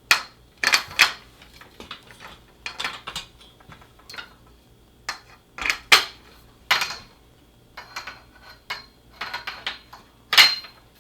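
Metal crossbar tubes of a backdrop stand clinking and knocking against each other as the sections are fitted together and set onto the stand tops: a dozen or so irregular sharp metallic knocks with short ringing.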